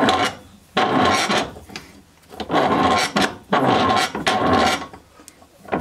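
Bench vise being worked by its handle: four strokes of about a second each, with short gaps between.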